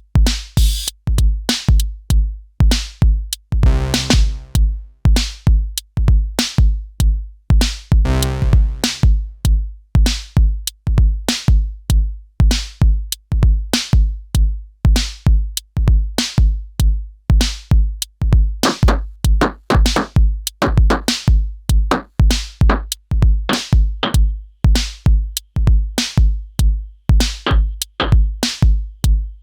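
Elektron Syntakt drum machine playing a pattern: a deep kick drum about twice a second with sharp hi-hat and percussion hits between. Around 4 and 8 seconds in, denser rolling hits briefly fill the pattern.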